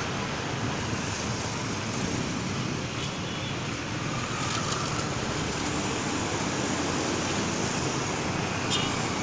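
Steady road traffic noise: the even rush of passing vehicles and their engines on a busy road, with a short sharp click near the end.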